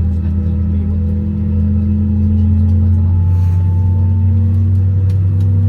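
Steady low cabin drone inside an Airbus A320 on the ground before takeoff, a deep hum whose pitch creeps slightly upward.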